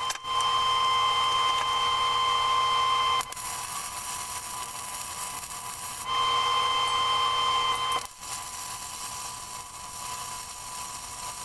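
A small electric motor whining steadily at a fixed pitch. It runs louder for the first three seconds, drops back, and then runs louder again for about two seconds in the middle.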